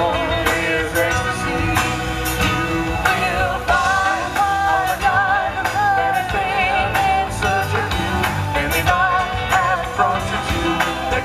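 Live band playing a rock/pop song: a woman singing into a microphone, her held notes wavering with vibrato, over electric bass guitar and a drum kit with steady beats and cymbals.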